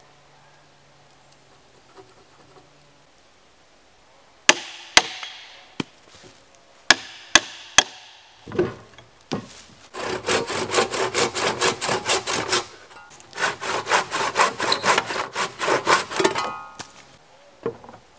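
Handsaw cutting across a wooden log in two runs of quick, even back-and-forth strokes. These come after a few sharp wooden knocks, and a last thump follows near the end.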